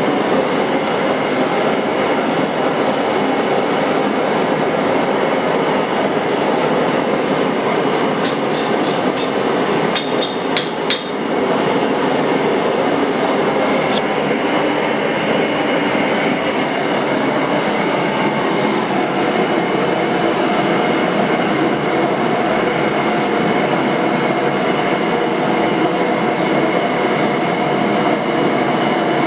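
Steady, loud machine noise with a few faint steady tones through it, broken by a short run of sharp clicks about ten seconds in.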